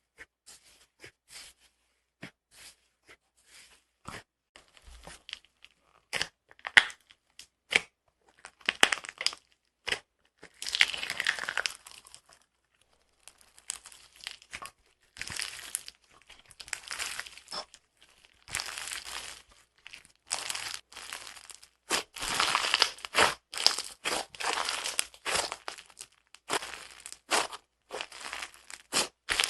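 Slime squished and stretched by hand, giving irregular crackling, crinkling pops and crunches. They are sparse and faint at first, then come in denser, louder bursts.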